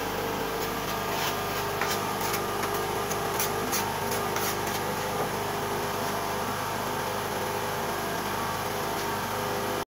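A steady machine-like hum, with a few light scrapes and clicks in the first half from a small trowel spreading white tile adhesive on a tile strip.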